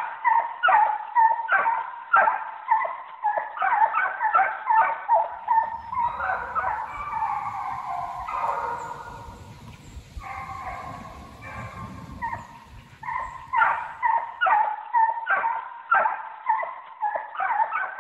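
A pack of hunting hounds barking in quick, repeated barks, about two a second. In the middle stretch the barks give way to longer, overlapping drawn-out calls over a low rumble, then the quick barking returns.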